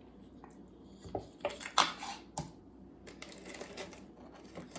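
Small hard plastic parts and tools being handled: a few sharp clicks and knocks about a second in, then a short scratchy scraping.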